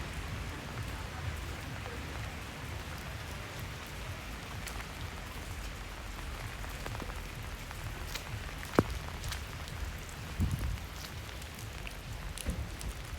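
Rain falling steadily on a wet street, with scattered drips and one sharp tick a little past the middle.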